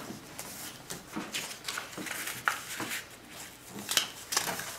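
Construction paper rustling as hands fold its corners in to the centre crease and press the folds flat: a run of short, irregular papery scrapes and crackles.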